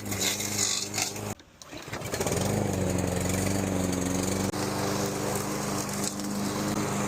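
Lawn mower engine running steadily. A little over a second in, the sound cuts out briefly, then the engine comes back and runs on.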